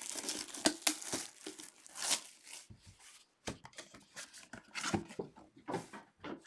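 Clear plastic shrink-wrap being ripped off a sealed trading card box and crumpled: irregular crinkling rips and rustles with brief pauses.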